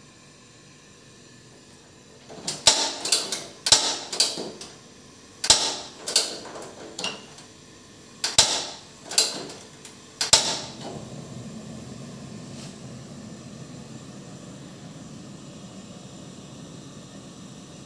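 Piezo ignition knob on a National GT-220MAF two-burner gas stove, turned again and again: about ten sharp clicks in small groups over some eight seconds. The burner catches at about ten seconds in, and a steady hiss of the gas flame follows.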